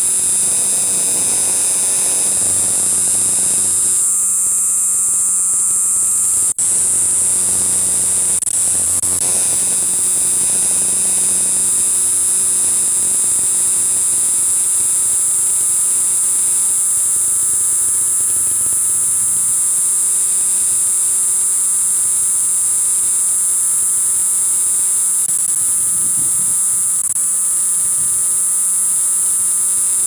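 Cicada calling: a loud, continuous high-pitched buzz that holds steady, broken only by a momentary dropout about six and a half seconds in.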